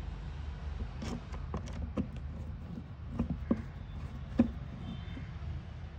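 Screwdriver driving screws into the plastic seat back of a ride-on toy car: scattered clicks and taps, the sharpest a little past four seconds in, over a steady low hum.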